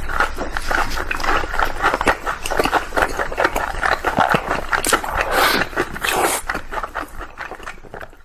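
Close-miked eating sounds of cream puffs and batter-fried food: dense wet chewing, lip smacking and crisp crunching, fading away near the end.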